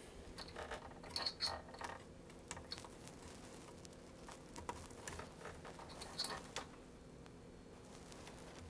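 Faint, scattered small clicks and rustles of flat ribbon cables and wire connectors being handled and pushed into sockets on a sewing machine's circuit board, in two clusters, one about a second in and one near six seconds.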